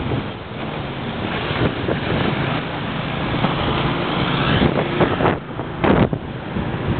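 Wind rushing over the microphone on a moving motorcycle taxi, mixed with the motorbike's engine and the surrounding traffic. A couple of louder knocks or gusts come a little past the middle.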